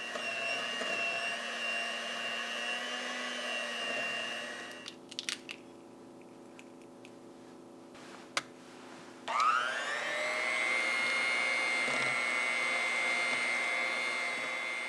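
An electric kitchen blender running for about five seconds and stopping. After a few clicks it spins up again with a rising whine about nine seconds in and runs steadily.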